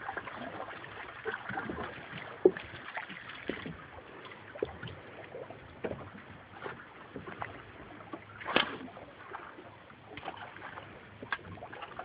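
Small fishing boat at rest on the water: scattered light knocks and clicks over a faint steady hiss, with one louder knock about eight and a half seconds in.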